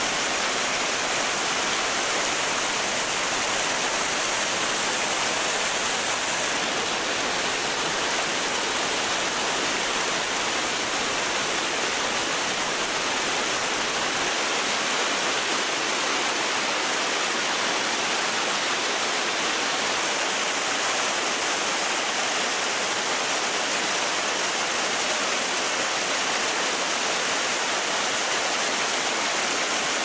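Water of a small mountain stream rushing and splashing over rocks and little cascades: a steady, even rush.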